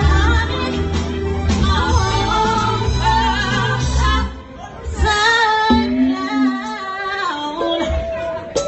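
Live R&B band with a woman singing wordless runs over it; a little after four seconds in, the band drops out and her voice carries on almost alone in long held, sliding notes.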